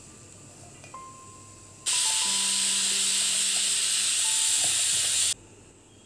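A loud, steady hiss lasting about three and a half seconds, starting and stopping abruptly, over soft background music with long held notes.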